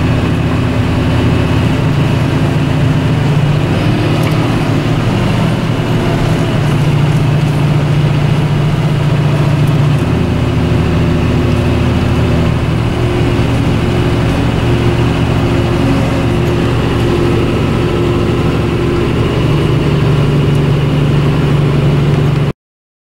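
John Deere 7530 tractor's six-cylinder diesel engine running steadily under way. Its note shifts in pitch a few times, about 4, 10 and 20 seconds in, and it cuts out abruptly for a moment near the end.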